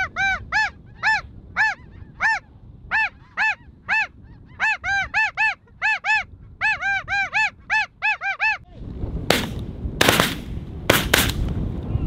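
Snow goose calls: a quick, even series of single high honks, about three a second, each note rising and falling. The calling stops near the end, giving way to rushing noise cut by four or five sharp, loud bangs.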